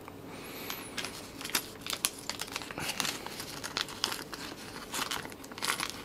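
Small clear plastic parts bag crinkling and crackling in the hands as it is handled, in irregular crackles throughout.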